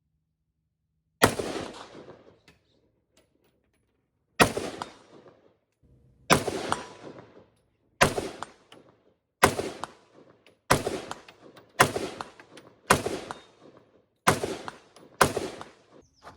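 Ten rifle shots, the first few about two to three seconds apart and then quicker, roughly one a second, each followed by an echo that dies away over about a second.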